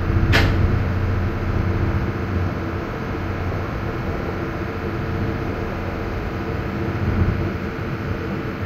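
Steady low drone of a river ferry's diesel engines running as it pulls away, with a brief sharp sound about half a second in.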